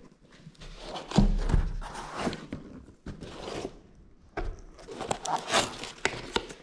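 Cardboard packaging handled and opened by gloved hands: the cardboard boxes slide, scrape and rustle irregularly, with a dull thump about a second in.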